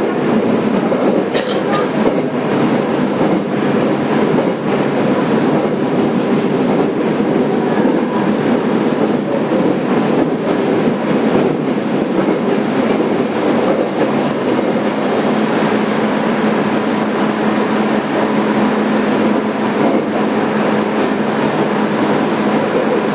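Running noise heard from inside a JR Kyushu 817 series 3000 subseries electric multiple unit motor car: a steady rumble of wheels on rail and car body. There are a few sharp clicks about two seconds in, and a low steady hum comes in during the last several seconds.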